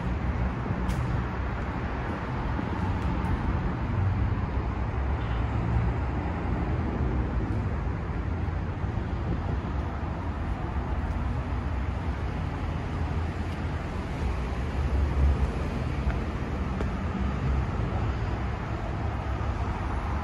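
Steady road traffic noise from passing cars, with a constant deep rumble.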